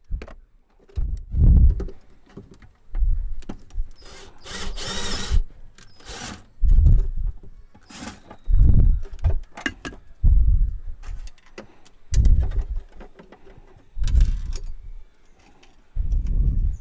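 Hand-tool work on a central-locking actuator and its metal strip bracket in a car's boot. A string of dull knocks comes about every two seconds, with a longer scraping rasp around four to five seconds in.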